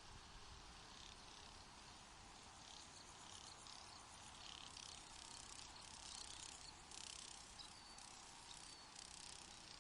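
Very faint hiss with patches of high-pitched, insect-like chirping and a couple of short, thin chirps late on.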